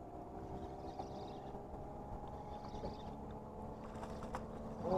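Boat motor running steadily, a low even hum with water and wind noise, with a couple of faint clicks; a voice breaks in right at the end.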